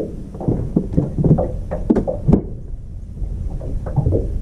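A quick run of sharp knocks and clatters, then softer, lower knocks in the second half: handling noise aboard a small fishing boat.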